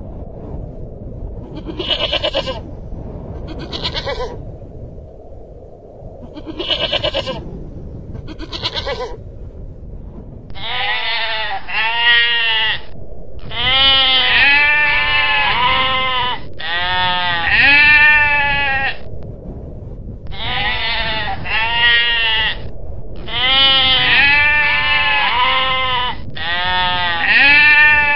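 Long-tailed goral calls: four short, harsh, breathy calls a couple of seconds apart. From about ten seconds in come bouts of rapid bleats, each rising and falling in pitch, repeated several times a second with short breaks between bouts.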